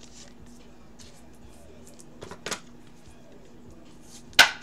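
A few light clicks of trading cards being handled and set down on a stack on a tabletop, with one sharper, louder click near the end, over a faint steady hum.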